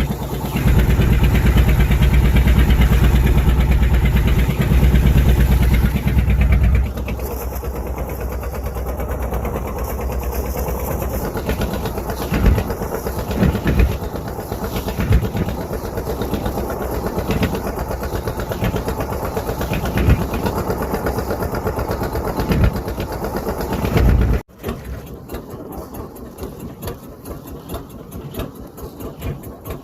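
A fishing boat's engine running steadily. It drops to a lower level about seven seconds in, with irregular knocks, then cuts off abruptly to a much quieter sound near the end.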